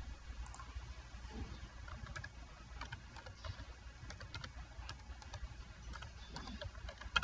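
Faint, irregular keystrokes on a computer keyboard as a password is typed, over a low steady hum. A sharper click comes near the end.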